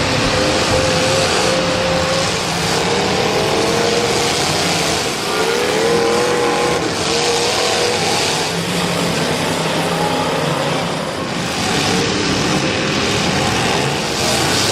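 Several race car engines running and revving together, their pitch rising and falling as the cars go around the track.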